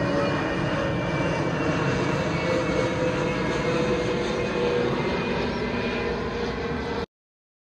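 Jet airliner passing low overhead, its engines giving a loud, steady noise with a held whine in it. The sound cuts off abruptly near the end.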